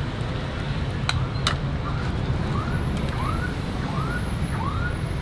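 Street traffic rumbling steadily. Two sharp clicks about a second in, and from about two seconds in a short rising-and-falling chirp that repeats about every 0.7 seconds.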